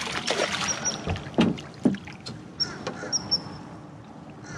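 A hooked snook thrashing and splashing at the surface right beside the boat as it is led in, with water sloshing and a few short sharp knocks in the first half. The splashing fades toward the end.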